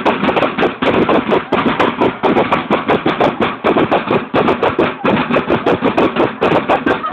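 A line of marching snare drums played together in a fast, dense cadence, many strikes a second.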